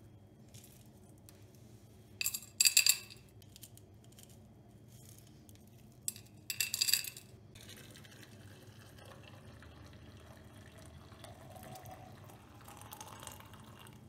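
Two brief bursts of sharp clinking in a kitchen, then liquid being poured into a vessel, its tone rising in pitch as the vessel fills.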